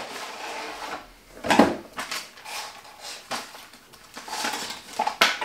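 Handling noises from a cardboard model kit box and its contents: irregular rustling, scraping and light knocks, the loudest about one and a half seconds in.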